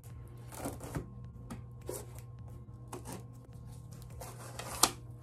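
Cardboard box being opened by hand: a series of short rustles and scrapes as the flaps are pulled and rubbed, with one sharp snap near the end.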